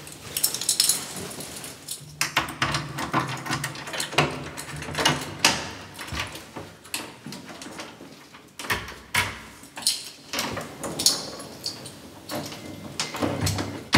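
Keys jangling and clicking against a door lock while the door is unlocked, then opened, with irregular sharp clicks and rattles throughout.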